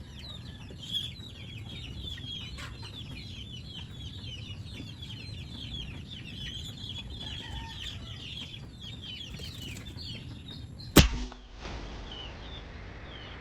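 A PCP air rifle fired once near the end: a single sharp crack, by far the loudest sound. Before it, steady chirping birds and clucking chickens.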